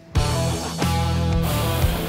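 Rock-style background music with guitar. It cuts in just after a brief dip at the very start and then runs steadily.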